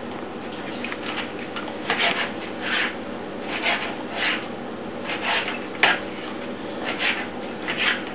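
Kitchen knife dicing raw mallard breast meat on a plastic cutting board: a steady series of short cutting strokes, one to two a second, with one sharper knock of the blade on the board a little before six seconds in.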